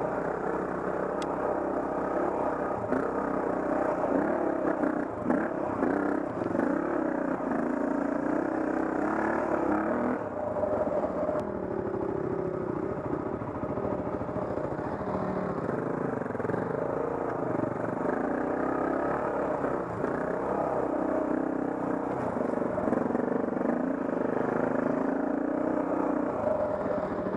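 Dirt bike engine running under way on a rough trail, its pitch rising and falling as the throttle is opened and closed.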